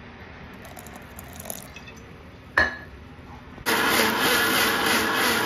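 A sharp click, then about a second later a mixer grinder starts suddenly and runs steadily and loudly, grinding wet coconut masala with a little added water into a fine paste.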